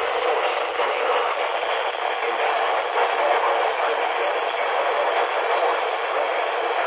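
Steady hiss of static from a weather radio receiver, with no voice or alert tones on the channel.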